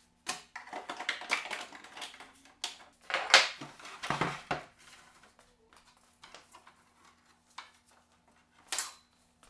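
Plastic parts of a table tennis ball robot clattering and clicking as a piece is pushed back into place on its base, with a loud click about three seconds in. A few lighter clicks follow.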